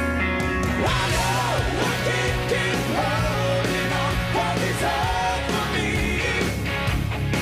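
Melodic hard rock band playing live with drums, electric guitars and bass, with a bending lead melody line over them. A held chord gives way to the full band with drums just after the start.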